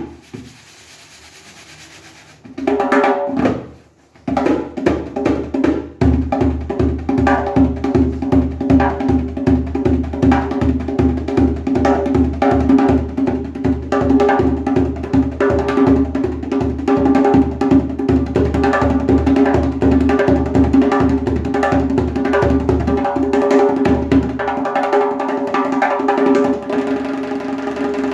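12-inch Aria Percussion djembe played by hand. A few strokes come after a quieter start, then a fast, continuous rhythm of deep bass tones and sharp slaps. About 24 seconds in the deep bass drops out and the playing goes on lighter.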